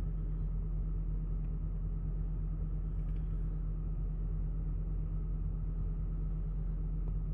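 Steady low rumble of a Range Rover driving, heard from inside the cabin: engine and road noise.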